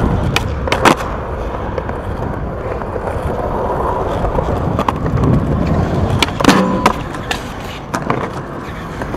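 Skateboard wheels rolling on smooth concrete, with sharp wooden clacks of the board popping and landing: two about a second in and more around six and a half seconds.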